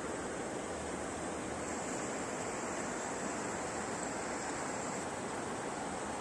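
Mountain river rushing steadily over rocks, a constant even rush of water.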